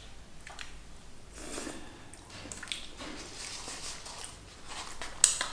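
Close-up eating sounds: chewing with wet mouth clicks and smacks, and a sharp click near the end.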